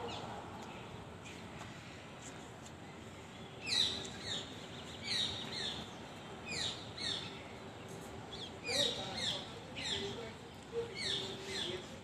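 Rose-ringed parakeet calling: short, falling chirps in quick groups of two or three, starting about four seconds in and repeating to the end.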